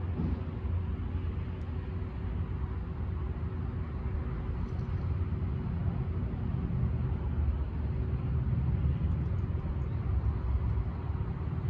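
Steady low outdoor rumble of town traffic and background noise, with no distinct events.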